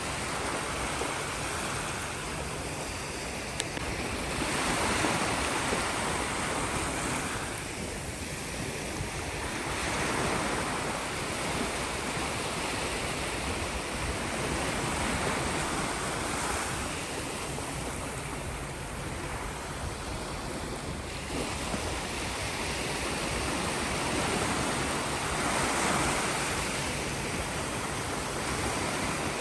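Sea waves breaking and washing ashore, a steady wash of surf that swells and falls back every few seconds.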